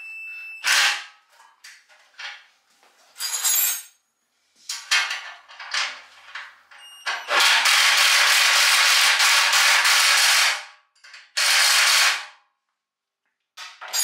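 Cordless impact driver running a large nut down onto a wheel axle. It goes in several short bursts, then one run of about three seconds, then another short burst.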